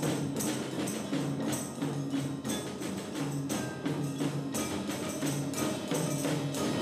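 Percussion ensemble playing live: mallet keyboards and timpani sound a steady beat of struck, ringing notes.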